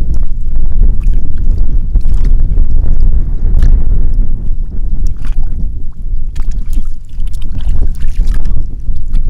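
Wind buffeting the microphone in a heavy, steady rumble, with scattered short splashes and slaps of hands groping in shallow muddy water.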